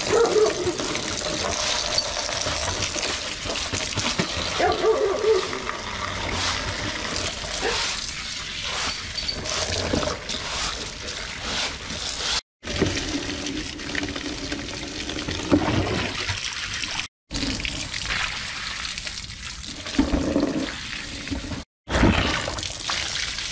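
A stream of water pouring and splashing into a plastic pot while hands rub and scrub its inside. The water sound breaks off for an instant three times.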